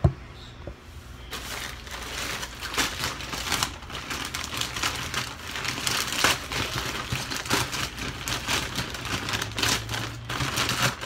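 Black plastic shipping bag crinkling and rustling as it is pulled open and rummaged through by hand, a dense crackle of plastic handling that starts about a second in.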